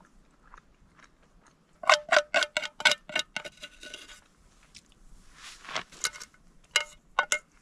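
A metal utensil clinking against a small metal frying pan: a quick run of about eight ringing taps, then a soft scrape and three more clinks near the end.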